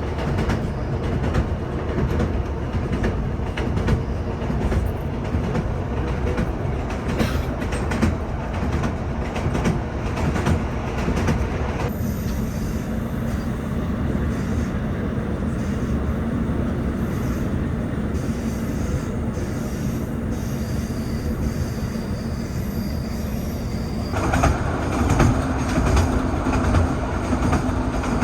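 ScotRail diesel train running along the track, with a steady low rumble and scattered clicks of wheels over rail joints. The sound changes abruptly twice, about a third and about two-thirds of the way through.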